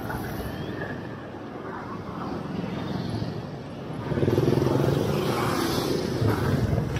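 Motorcycle engine running amid street traffic during a ride, growing louder about four seconds in.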